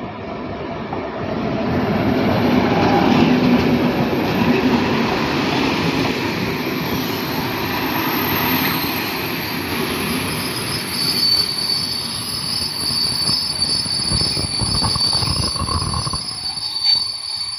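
Passenger train hauled by a diesel locomotive running past close by, the locomotive first, then the coaches' wheels rolling over the rails. A steady high-pitched squeal from the coaches' running gear sets in about eleven seconds in.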